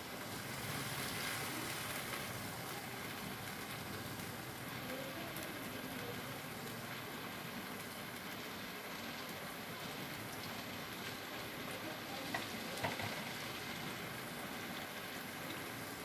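Steady faint hiss, with a few small clicks about twelve to thirteen seconds in as a knife scrapes out the inside of a round gourd (tinda).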